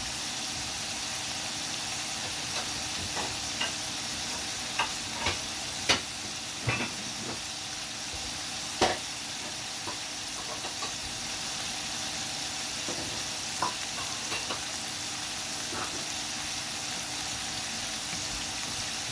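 Pork pieces sizzling as they fry in oil in a pan, with a utensil stirring them and knocking against the pan now and then, the sharpest knocks about six and nine seconds in.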